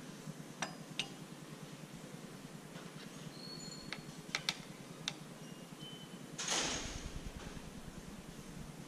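Small clicks and taps of drawing tools being handled and set down on a wooden tabletop, then a short rustle and scrape about six and a half seconds in, over a low steady hum.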